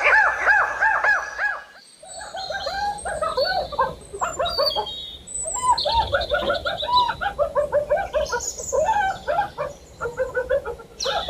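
Animal calls: rapid chattering runs of short, arched chirps, many overlapping, with brief pauses about two seconds in and again near the middle.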